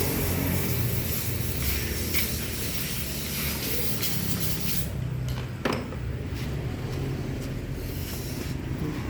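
Hissing spray during engine-bay cleaning, over a steady low hum. The spray stops about five seconds in, a sharp click follows, and a short hiss comes back near the end.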